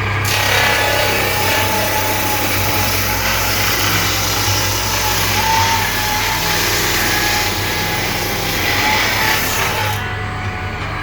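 Power saw cutting through solid wood: a dense hiss over the motor's steady hum, lasting about ten seconds. The hiss stops near the end while the motor keeps running.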